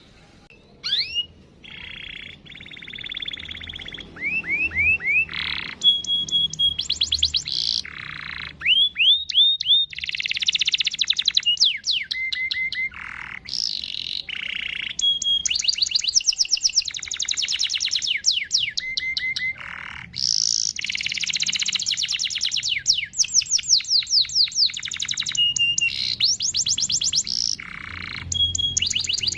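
Male domestic canary singing a long, continuous song. It mixes fast rattling trills and rolls, runs of rising 'cuit' notes, and short held whistles, starting about a second in.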